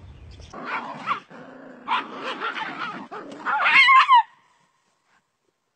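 A dog barking and yelping in quick, uneven calls. The loudest are high yelps that fall in pitch near the end, and then the sound cuts off suddenly.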